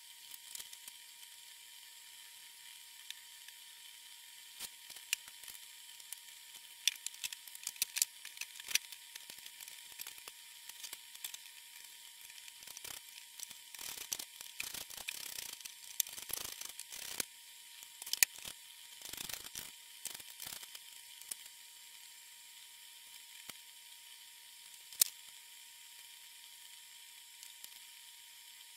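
Scattered clicks, taps and knocks of particleboard desk panels being handled and fitted together, busiest around the middle with short stretches of rubbing, and a couple of sharper knocks a little past halfway and later on.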